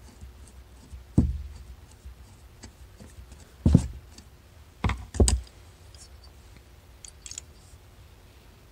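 Flathead screwdriver and aluminium carburetor body being handled while a brass jet is unscrewed: a few sharp clicks and knocks, with fainter ticks near the end.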